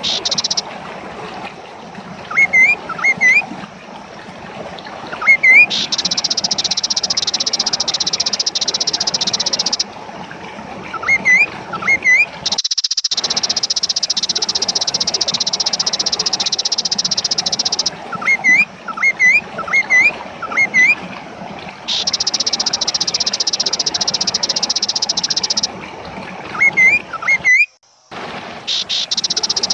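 Kaso-kaso songbird singing: clusters of short, sharp rising notes alternating with long, harsh buzzing trills that run high for four to six seconds at a time. The song breaks off briefly near the end.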